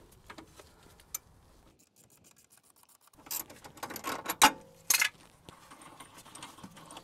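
Ratcheting spanner clicking as it turns the nut on a threaded-rod bush press tool, drawing a new rubber bush into a front suspension wishbone housing. A few light metal clicks at first, then a louder run of clattering clicks from a little under halfway through.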